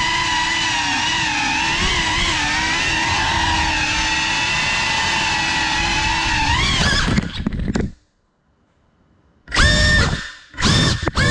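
GEPRC Cinelog35 cinewhoop's motors and propellers whining steadily, the pitch wavering as the throttle changes. About seven seconds in there are a few knocks and the motors cut out; a second and a half later they spool up sharply in two short throttle punches.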